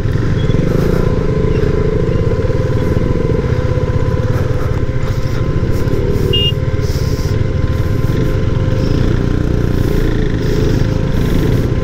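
KTM RC 390 motorcycle's single-cylinder engine running steadily.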